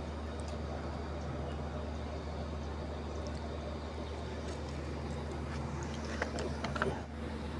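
Steady low mechanical hum of background noise, with a few light clicks and knocks about six to seven seconds in.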